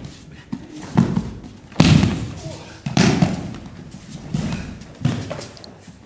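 Aikido breakfalls: bodies of thrown partners slapping and thudding onto the mats, about five sharp impacts roughly a second apart, each ringing on briefly in the hall.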